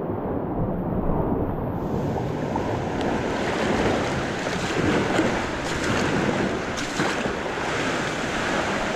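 Sea kayak paddling: the paddle blades splash into the water and sea water rushes and laps around the hull, with wind buffeting the microphone. A few sharper splashes come about five to seven seconds in.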